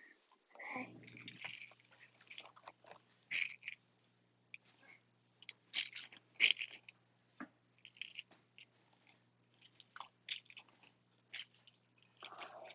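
A dog chewing and crunching its food, in irregular short crunches. A faint steady low hum starts about a second in.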